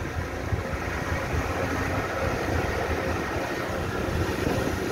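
Small open tour boat under way: its motor running steadily, with water rushing along the hull.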